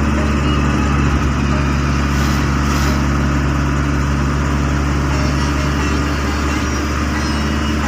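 Vehicle engine running steadily while driving, heard from inside the cabin: a constant low drone over road noise.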